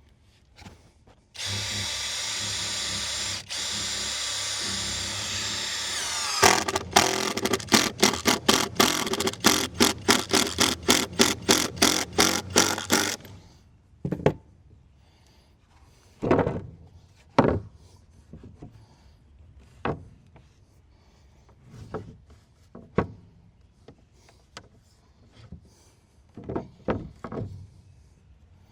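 Power drill driving a screw into the wooden shed deck framing: a steady run for about five seconds, then a rapid series of short pulses for about seven seconds. Scattered knocks and clicks follow.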